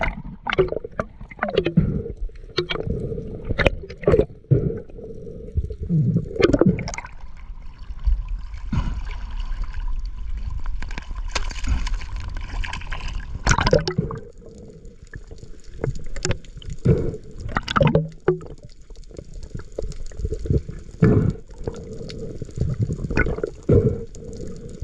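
Water sloshing and gurgling around an action camera carried by a swimming spearfisher, with frequent knocks and splashes and a faint steady hum underneath.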